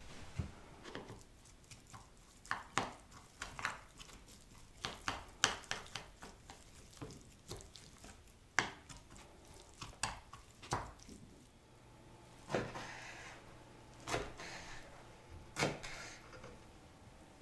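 Chopsticks clicking and scraping against a bowl as boiled greens are tossed and mixed, then, about twelve seconds in, a kitchen knife cutting through greens on a wooden cutting board in a few separate strokes.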